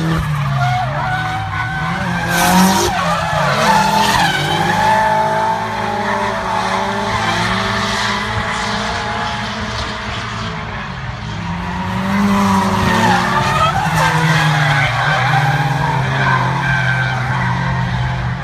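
Drift cars' engines revving hard with tyres squealing as the cars slide, engine pitch rising and falling again and again. It is loud, swelling about two seconds in and again after about twelve seconds.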